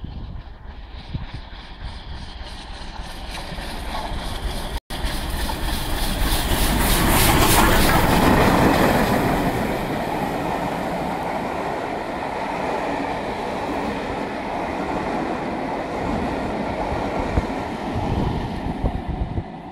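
Steam locomotive 34067 Tangmere, a Bulleid Battle of Britain class pacific, approaching and running through, growing louder to a peak as it passes about eight seconds in. Its coaches then roll by with a steady clickety-clack of wheels on the rails.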